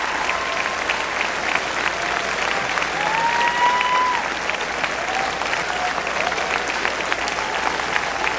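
Large concert audience clapping and cheering, with several long whoops rising above the dense clapping.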